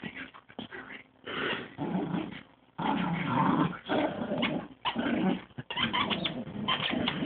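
A Chihuahua and a young Lab/golden retriever puppy growling in play as they tug on a cloth, in irregular bursts with short pauses, busiest in the second half.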